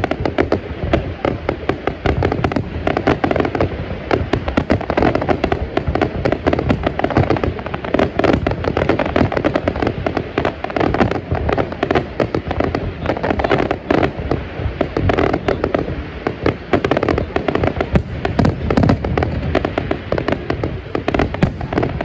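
Fireworks display: a dense, continuous barrage of bangs and crackling reports from bursting aerial shells.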